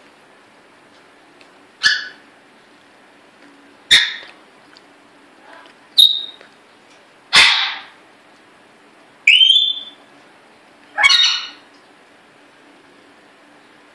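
African grey parrot giving six short, loud calls roughly two seconds apart, one of them, a little past the middle, a rising whistle.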